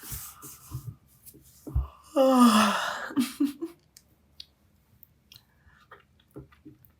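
A woman yawning: a breathy intake of air, then a loud voiced yawn about two seconds in that falls in pitch over about a second, followed by a few small mouth sounds.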